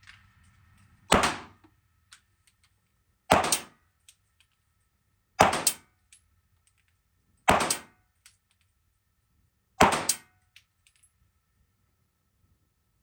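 Five gunshots fired at a steady pace, about two seconds apart, each a sharp crack with a short echo off the walls of an indoor shooting range.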